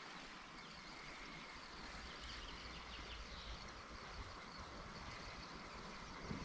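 Faint, steady outdoor creek ambience: a low even hiss with no distinct events.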